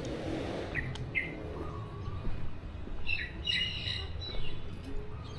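Small birds chirping in short calls: a couple of quick chirps about a second in, then a busier cluster of chirps around three seconds in.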